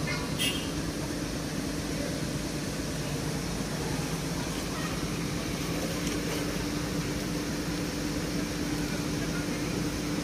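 SANY crawler excavator's diesel engine running steadily with a low hum while it works its boom. A brief sharp click about half a second in.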